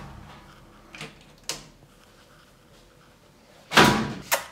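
Two small sharp clicks about a second in, as the circuit breaker on the electrical panel is switched back on, then near the end the panel cupboard door is swung shut: a brief sweep and a knock as it closes.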